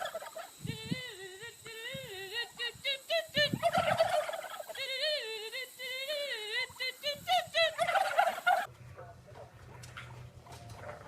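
An animal call of many short, rapidly wavering notes, going up and down in pitch, for about eight and a half seconds. It stops abruptly and gives way to a low steady hum.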